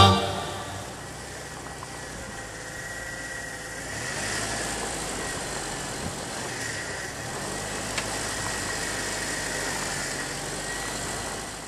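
Jeep Wrangler engine running at low speed as the Jeep crawls over rough, rutted dirt. The engine note rises a little about four seconds in, and there is a single sharp click about eight seconds in.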